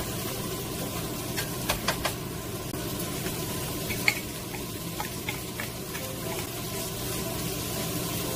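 Dried anchovies and chopped green chili peppers sizzling in a nonstick wok as a wooden spatula stirs them. A few sharp taps come about a second and a half to two seconds in, and a louder tap about four seconds in as chopped peppers are scraped in from a bowl.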